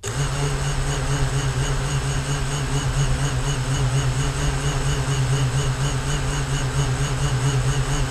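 Small FPV quadcopter's brushless motors starting up all at once and then idling at a steady speed: a loud, even hum with a high whine on top. The quad has just been armed and sits on the ground before takeoff, heard through its onboard camera.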